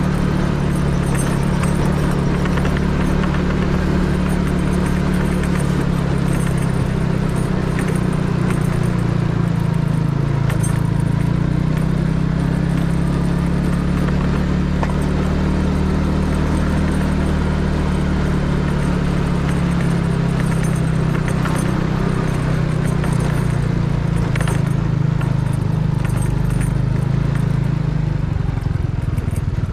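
Yamaha Mio automatic scooter's small single-cylinder engine running steadily while riding, under a continuous rush of road noise; its hum shifts slightly near the end.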